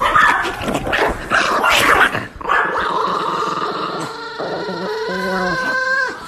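Small long-haired dog growling and grumbling, then a drawn-out whine that wavers up and down in pitch near the end.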